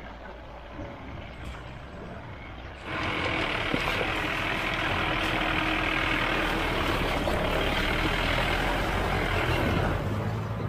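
Mahindra Bolero's engine running as it drives through a shallow river. About three seconds in, loud rushing and splashing of water sets in as the tyres plough through close by, and it holds steady until near the end.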